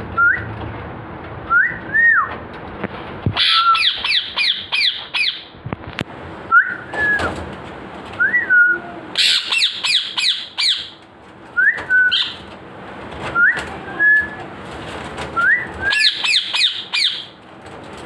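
Pet green parakeets calling: single whistled notes that rise and fall, and three loud runs of quick, harsh repeated screeches, about half a dozen to a run.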